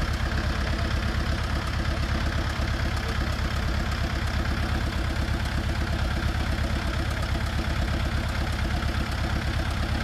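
Small farm tractor's engine running steadily at low revs with an even, fast chug.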